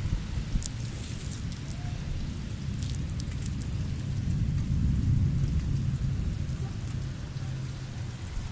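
Storm noise with rain: a steady low rumble with scattered light ticks of drops, swelling a little around the middle.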